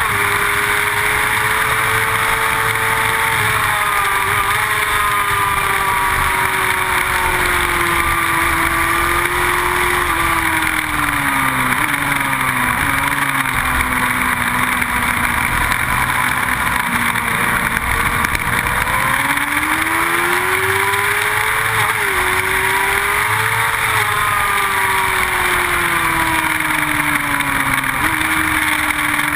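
Motorcycle engine at track speed, recorded onboard, under heavy wind rush on the microphone. Its pitch falls slowly for several seconds, climbs again about twenty seconds in, then jumps up suddenly near the end.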